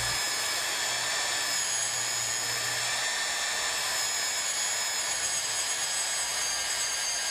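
Hougen HMD904S magnetic drill running steadily under feed pressure as its annular cutter bores a hole through metal, a constant motor whine over cutting noise.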